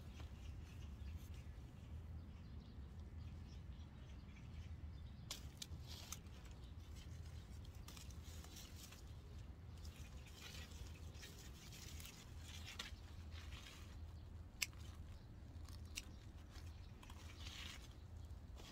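Faint rustling of cucumber leaves and vines being handled while a cucumber is picked, with a few isolated sharp clicks.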